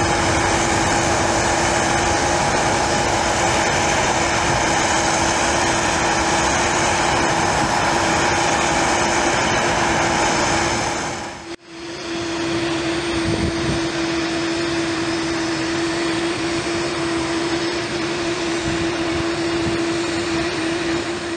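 Jet airliner engines running, a loud steady rush with a constant hum. About halfway through it drops away suddenly and a quieter, steady hum of ground equipment carries on with the same low tone.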